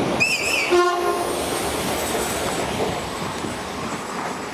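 Electric commuter trains passing through the station with a steady rumble. About a second in, a train gives a short horn blast, just after a brief warbling high tone. The rumble eases off toward the end.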